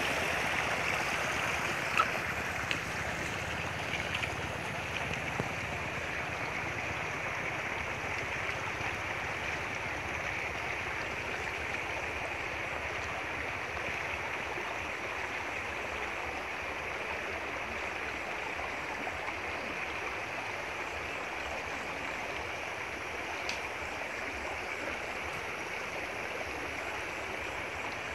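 Steady rushing of water flowing through a flooded creek, easing slightly over the first couple of seconds, with a few faint clicks.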